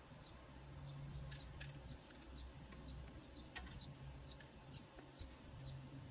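Quiet garden ambience: faint, high, repeated chirps of small birds, a low hum that comes and goes, and a few light clicks as the electric hand planer is picked up and set against the board. The planer motor is not running.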